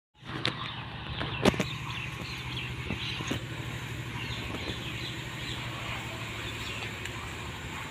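Outdoor ambience: a steady low hum with faint bird chirps and a few sharp knocks, the loudest about a second and a half in.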